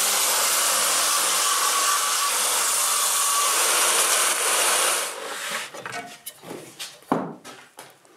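Festool HK 85 EB plunge-type circular saw crosscutting the end off a thick seasoned oak board on a guide rail: a loud, steady cut that stops about five seconds in. Quieter handling rustles and a knock follow.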